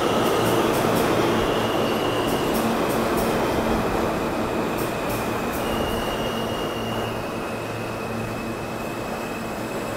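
R160-series New York City subway train running on the track, with wheels squealing in thin high tones and a run of sharp clicks in the first half, the noise slowly fading.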